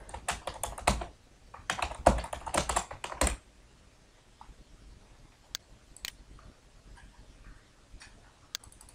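Computer keyboard being typed on in two quick runs of keystrokes over the first three seconds or so, then a few scattered single clicks.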